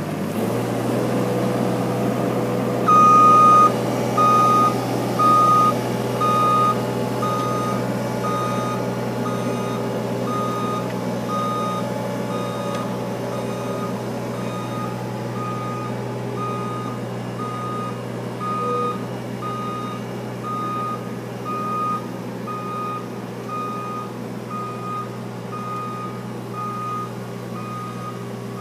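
Engine of a pipe-pulling plough machine running steadily, its vibrating plough not engaged. From about three seconds in a single-pitched warning beeper sounds about once a second, loudest for the first few beeps and then quieter.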